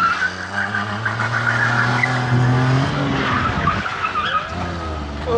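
Small hatchback's engine running hard through a cone slalom, its tyres squealing on tarmac in the tight turns near the start and through the middle, with the engine revving up near the end.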